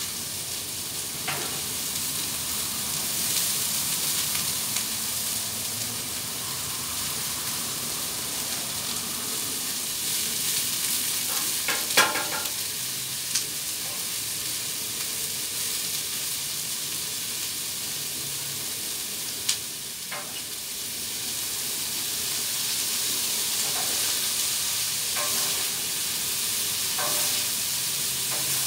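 Meat and vegetables sizzling steadily in olive oil on a Blackstone propane flat-top griddle, with a few sharp clinks of a metal spatula on the griddle, the loudest about twelve seconds in and another near twenty seconds.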